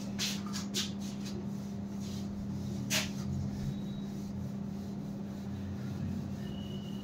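Whiteboard duster wiping marker writing off a whiteboard: soft rubbing with a few light knocks and one sharp tap about three seconds in, over a steady low hum.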